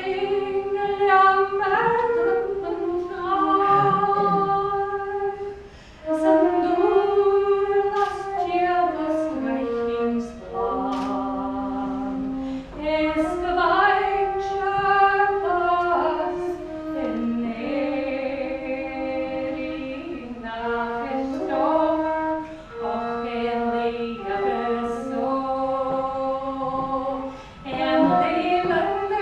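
A woman singing a slow Gaelic song, with a wooden flute playing the melody alongside her voice.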